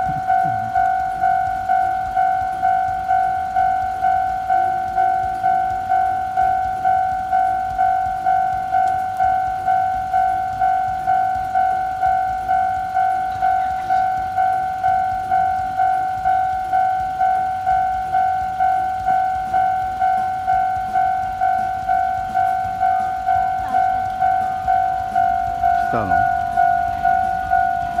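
Japanese railway level-crossing alarm ringing, a loud electronic bell tone repeating at an even, quick pace, sounding because a train is approaching and the barriers are down.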